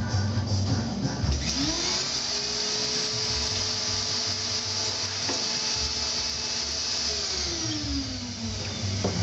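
A vacuum motor switches on and spins up about a second and a half in. It runs with a steady whine and hiss while the ink is pulled, then winds down near the end. It is typical of the suction that holds the paper flat on a screen printing table.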